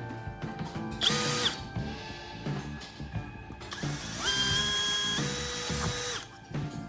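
A small electric power tool, drill-like, runs twice over background music. The first is a half-second spin-up, and about four seconds in a longer run of about two seconds. Each time the motor's whine rises quickly to speed and holds there before stopping.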